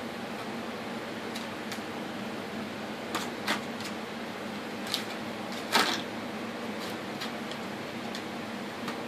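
A small dog tearing and crinkling paper packaging with its mouth: a scattering of short, sharp rips and rustles, the loudest and longest about two-thirds of the way in, over a steady low background hum.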